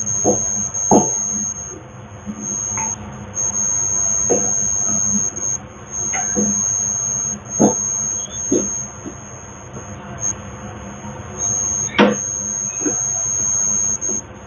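A steady high-pitched electronic whine that drops out briefly now and then, over a low hum. Scattered knocks and taps of a rolling pin on a board as roti dough is rolled out, with one sharper knock about 12 seconds in.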